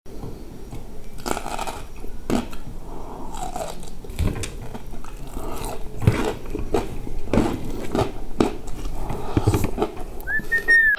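Close-up mouth sounds of a man eating crispy fried chicken and rice: irregular chewing, crunching and wet lip smacks.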